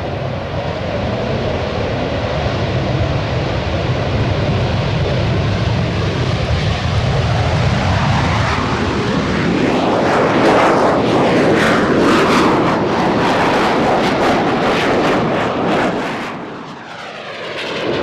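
Dutch F-16 Fighting Falcon's jet engine on its take-off run: a steady roar that builds to its loudest and roughest about halfway through, with a sweeping, phasing sound as the jet passes. The roar dips briefly near the end and then comes back.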